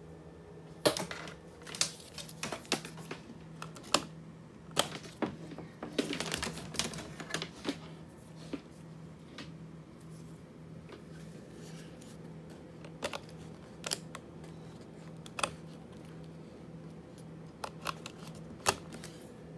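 Small plastic clicks and taps from handling a green SC fibre-optic connector, thick for the first several seconds and then sparser, with a last click about a second before the end as it is pushed into the wall fibre jack. A steady low hum runs underneath.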